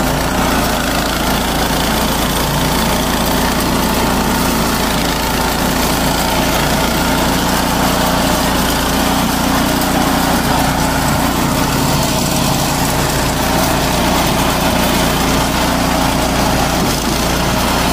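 Small single-cylinder petrol engine of a walk-behind mulching machine running steadily as its cutter chews through tall grass and weeds.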